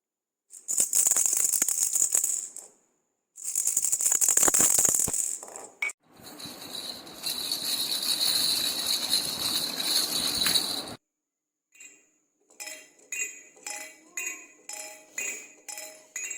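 Toy rattles shaken in turn: two bursts of fast, dense rattling, then a longer continuous rattle. After a short gap, a rattle with chiming tones is shaken in separate strokes, about two a second.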